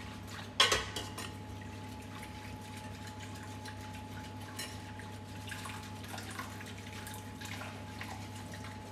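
A metal ladle scooping warm milk from a steel pot and pouring it into beaten egg yolks while a whisk works them in a glass bowl: soft splashing and dripping with light clicks. A sharp clink of metal on the pot about half a second in, and a faint steady hum and thin high tone throughout.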